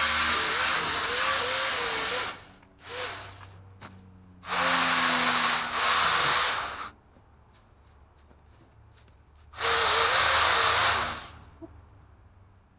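Pole saw motor running in bursts, four times, its whine dipping in pitch at moments as the chain bites into the branch and winding down each time the trigger is released.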